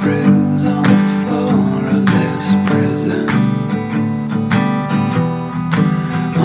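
Background song music: an acoustic guitar playing plucked and strummed notes, with no voice in this passage.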